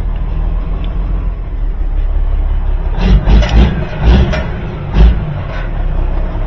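Semi truck's diesel engine running steadily, heard from inside the cab, with a cluster of loud thumps and knocks about three to five seconds in.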